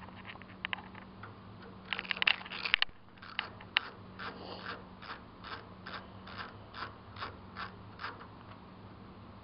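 A screwdriver backing a screw out of a printer carriage's plastic-and-metal plate: a cluster of sharp clicks and scrapes about two seconds in, then an even run of clicks about two or three a second as the screw is turned.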